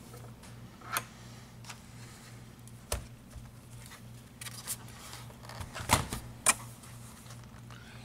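Plastic laptop case being handled and turned over, a few sharp clicks and knocks, the loudest two about six seconds in, over a steady low hum.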